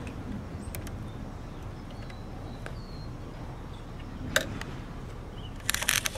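A few light clicks and taps from a diecast metal toy garbage truck being handled on rough concrete, with a quick rattle of clicks near the end, over a steady low rumble.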